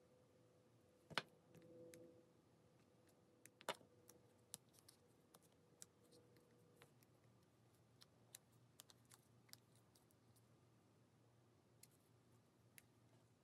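Near silence with faint, scattered clicks and ticks of jewelry pliers and gold-fill wire being handled during wire wrapping, with two sharper clicks about one and four seconds in.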